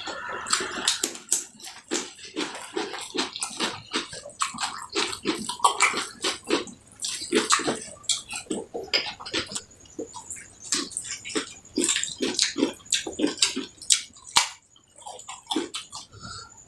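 Close-up eating sounds: a person chewing and smacking mouthfuls of rice with fish curry, a rapid, irregular run of short clicks and smacks.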